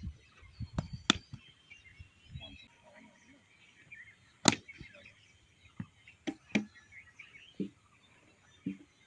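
Sharp knocks from a cricket bat during batting drills: one about a second in, another around four and a half seconds, and a close pair near six and a half seconds. Birds chirp in the background.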